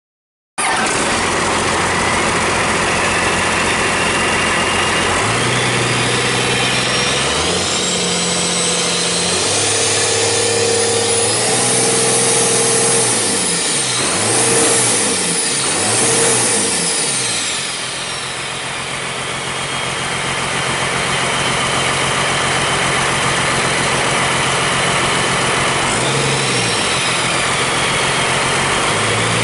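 Used Cummins 5.9L 12-valve inline-six turbo diesel running during its run-in. Its speed steps up and down several times, with quick revs up and back down in the middle, then it holds at a steady speed.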